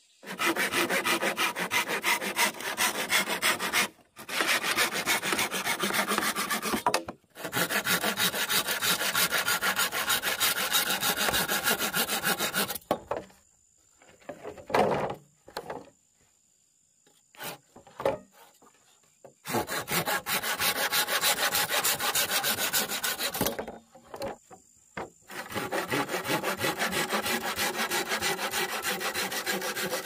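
Hand saw cutting through a green bamboo culm in long runs of quick back-and-forth strokes, stopping briefly a few times. During a longer pause near the middle there are only a few short knocks.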